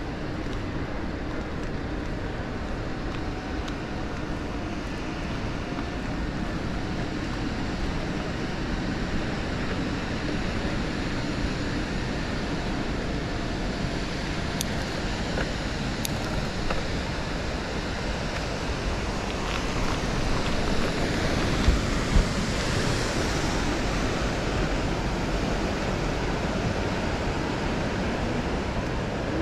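Steady rushing noise of wind on the microphone and bicycle tyres rolling on a paved path during a ride, with two short thumps about two-thirds of the way through.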